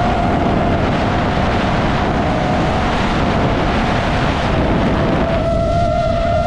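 DJI FPV drone's motors whining at a steady pitch over loud wind rush on the microphone during flight; the whine sinks into the wind noise about half a second in and comes back clearly about five and a half seconds in.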